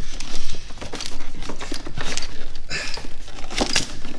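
A rubber engine tube rustles, scrapes and clicks against engine parts as it is worked into place by hand to plug into the valve cover, with the loudest scrapes at about two and three-quarter and three and a half seconds in.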